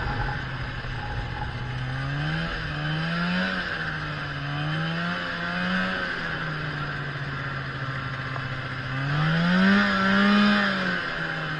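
Snowmobile engine running under way, its pitch rising and falling with the throttle a few times. The loudest rev comes about nine to eleven seconds in, over a steady hiss of track and snow.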